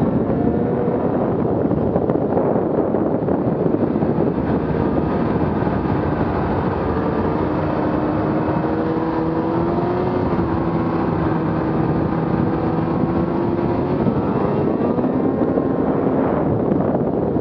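Arctic Cat M8000 snowmobile's 800cc two-stroke engine running at trail speed over a constant rush of track and snow noise. Its pitch drifts up and down with the throttle, rising through the middle and dropping back about three quarters of the way in.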